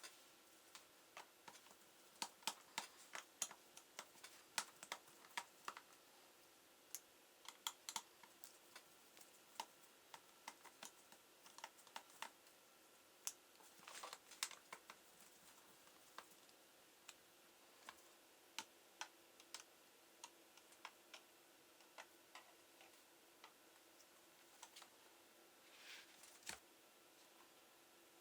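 Irregular small clicks and taps of plastic and metal as a laptop is taken apart by hand with a screwdriver, coming in quick clusters at times, with a denser run of clicks about halfway through.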